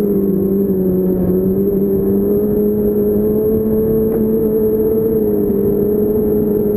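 A 2006 Yamaha Apex Attak snowmobile's four-stroke four-cylinder engine runs at a steady cruising speed as the sled is ridden along the trail, heard close from the rider's seat. The pitch holds nearly constant, lifting slightly past the middle.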